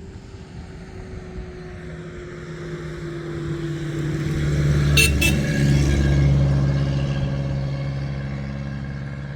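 A motor vehicle's engine running, growing louder to a peak about five seconds in and then fading, its pitch falling slightly. Two sharp clicks at the loudest point.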